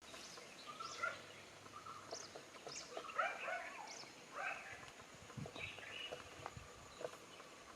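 Faint mixed birdsong: short chirps and calls from several birds, scattered through the whole stretch over a light background hiss.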